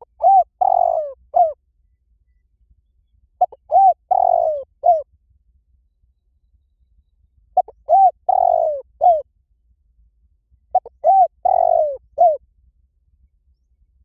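Spotted dove cooing: four repeated phrases, each a few short coos around a longer, rougher middle note.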